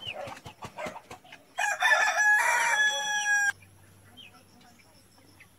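A few short chicken calls, then a rooster crows loudly for about two seconds and breaks off abruptly, leaving only a faint hum.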